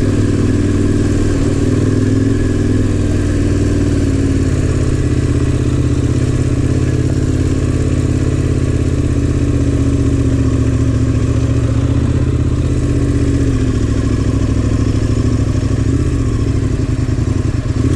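KTM adventure motorcycle's engine running steadily at low revs on a rough gravel track, its pitch rising and falling gently with the throttle.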